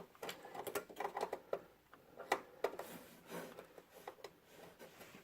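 Cables and small plastic parts being handled inside an open desktop computer case: irregular light clicks and taps.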